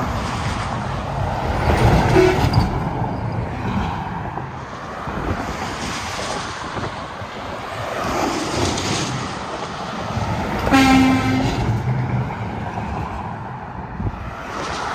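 Heavy highway traffic with tractor-trailers passing one after another, the road noise swelling and fading as each goes by. A short horn blast sounds about eleven seconds in, and a briefer tone about two seconds in.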